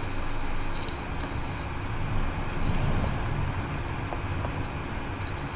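A steady low rumble of background noise, with no speech.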